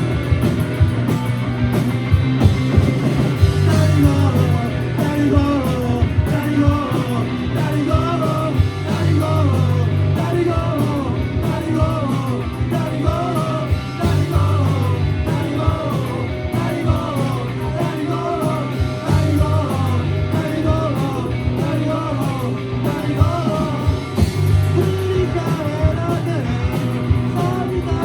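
Rock band playing live: electric guitars, bass and drums at full volume, with a wavering melodic line over the top through the middle stretch.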